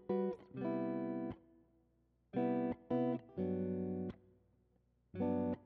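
Background guitar music: chords played in short phrases, each held briefly and then stopped short, with brief pauses in between.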